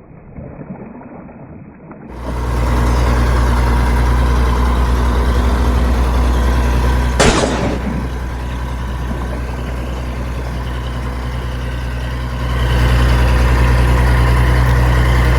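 Heavy vehicle engine running steadily, starting about two seconds in, with a sharp burst about seven seconds in and getting louder again near the end.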